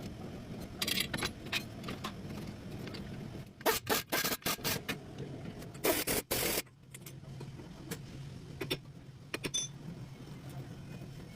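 A car running with a steady low hum, with scattered clicks and knocks and two louder bursts of noise about four and six seconds in.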